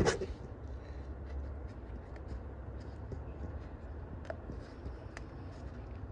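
Faint scratching and a few light clicks from gloved fingers handling the intake gasket on the outboard's block, over a low steady background hum. A short bump comes right at the start.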